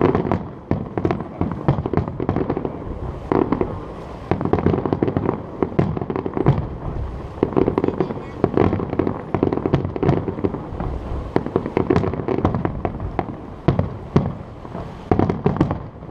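Fireworks display: a dense, continuous barrage of aerial shell bangs and crackles, many overlapping, with the last bangs just before the end.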